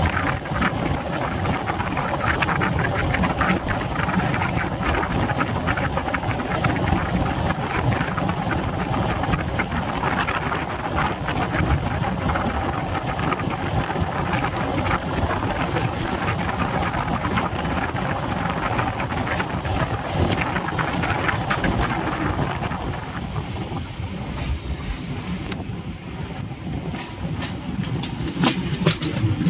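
Suburban electric multiple-unit train running at speed, heard at an open carriage door: a dense rumble and rush of air with frequent sharp clicks and knocks from the wheels on the track. The noise eases about three-quarters of the way through.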